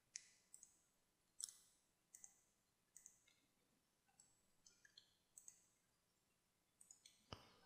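Faint computer mouse clicks, irregularly spaced, over near silence.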